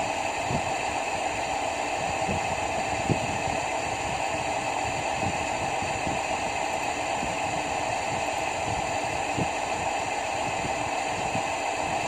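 Steady fan-like machinery noise with a low hum, unchanging throughout, with a few faint soft knocks in the first few seconds.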